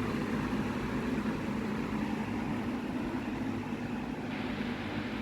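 Lasko Power Plus B20540 box fan running on its low setting: a steady whir of air with a constant low motor hum. The blade is out of balance.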